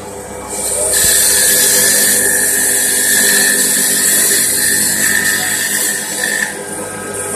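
A mini CNC lathe running, its tool cutting a spinning workpiece. A steady machine hum carries a hissing cutting noise and a thin high whine, which come in about a second in and ease off near the end.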